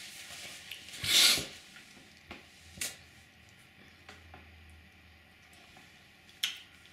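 Quiet handling noises at a table: a brief rustle about a second in, then a few light taps and clicks.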